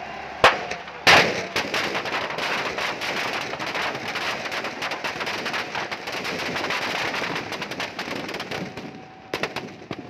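Firecrackers packed inside a burning Ravana effigy going off: two loud bangs in the first second, then a dense, rapid crackle of bursts that thins out near the end, with a few last bangs.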